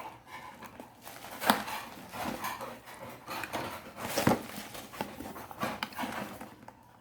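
Packaging and small items being handled: irregular rustling and light knocks, with two sharper knocks about one and a half and four seconds in.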